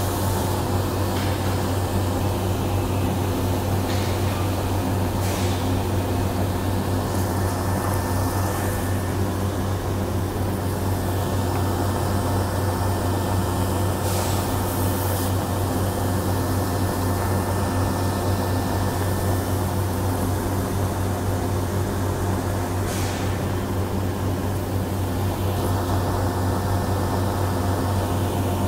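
Steady low machinery hum of a factory floor, with a handful of faint brief knocks a few seconds apart as a hand-lever arbor press is worked to stamp serial numbers into wood.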